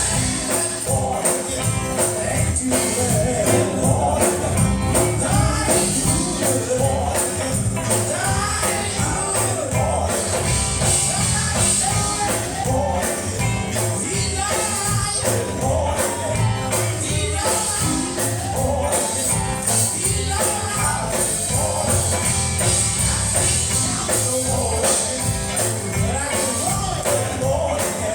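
Gospel song performed live: voices singing over a band with drums and a steady jingling tambourine.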